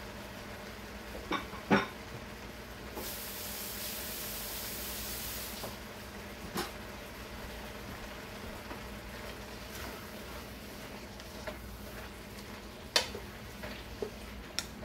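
Noodle and lettuce stir-fry sizzling and steaming in a wok, with a louder hiss about three seconds in that lasts a couple of seconds. There are a few sharp clicks, one near the end as a utensil goes into the wok to stir.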